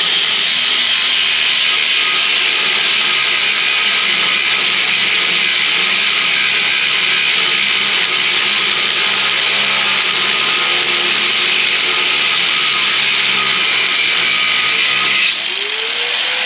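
Corded angle grinder with a cut-off wheel cutting steadily through a steel truck frame rail, a continuous high grinding whine. A little over a second before the end the sound drops slightly as the wheel eases off the steel, then the grinding carries on.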